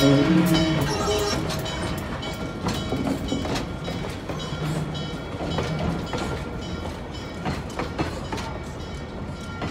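Norfolk & Western 611 train's tender and caboose rolling slowly past and away, their wheels clicking over rail joints, the sound fading as the train moves off.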